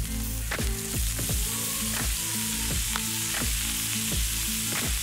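Diced bacon lardons sizzling as they fry in fat on a hot metal disc griddle over a fire, the hiss building about half a second in. Background music with a steady beat plays underneath.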